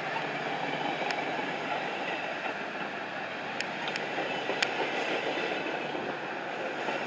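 Metra stainless-steel bi-level gallery coaches rolling past close by as the train pulls out of the station, a steady rumble of wheels on rail with a few sharp clicks at irregular moments.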